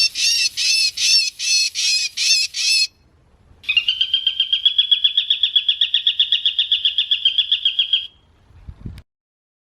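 Bird calls: a rapid series of sharp repeated calls, about three a second, stopping after about three seconds, then after a short pause a fast, even trill lasting about four seconds. A brief low thump just before the sound cuts off.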